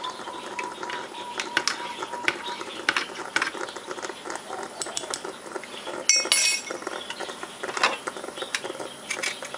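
Metal spoon stirring a latte in a tall ceramic mug, clinking and scraping against the inside in many small, quick clicks. A brighter ringing clink comes about six seconds in.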